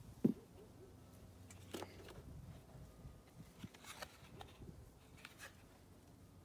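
Scattered light clicks and knocks of a plastic scooter air box cover being handled and pulled off, the sharpest click just after the start.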